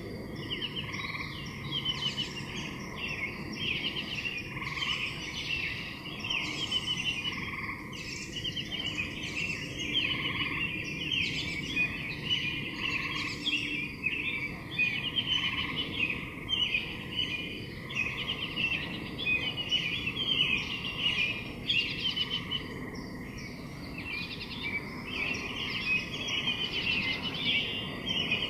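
A dense chorus of many small birds chirping and twittering continuously, with short overlapping trilled calls.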